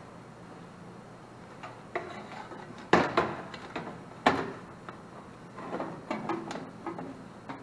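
Sheet-metal knocks and clanks as an electric heat strip kit is pushed by hand into a heat pump air handler's cabinet. A few sharp knocks start about two seconds in, followed by a looser cluster of lighter knocks near the end.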